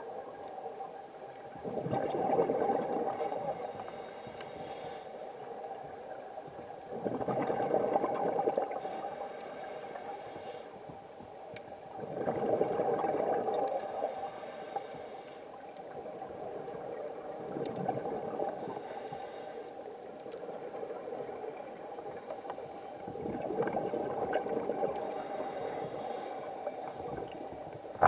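Scuba regulator breathing underwater: about five breaths, roughly one every five seconds, each a loud rush of exhaled bubbles alternating with the thin hiss of an inhalation, over a faint steady tone.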